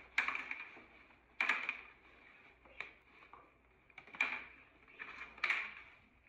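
Crumpled brown packing paper in a cardboard box crackling and rustling as a dog noses through it, in about five short rustles a little over a second apart.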